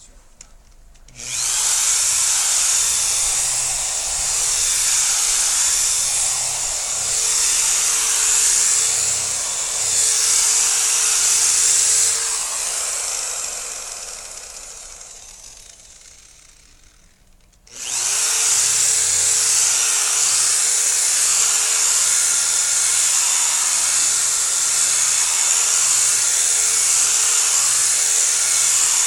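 Car polisher running on freshly painted body panels during paint polishing, a steady hissing whir with a steady tone under it. It starts about a second in, dies away slowly over several seconds in the middle, then starts up again and runs steadily.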